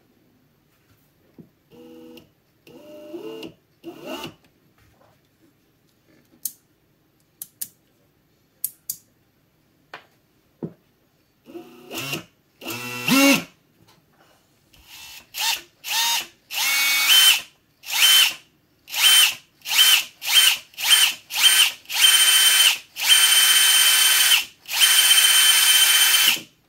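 The brushless motor of a DeWalt DCD996 cordless hammer drill, out of its housing, is run off the trigger in repeated short bursts. Each burst spins up with a rising whine and then holds a steady high tone, and there are two longer runs near the end. This is the bench test of the speed-control board after its fuse was replaced with a 30 A SMD fuse.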